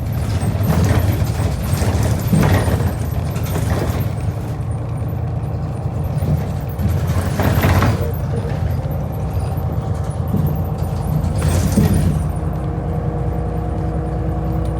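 Steady low rumble of a moving vehicle, with a few brief louder swells, and a faint steady hum joining about halfway through.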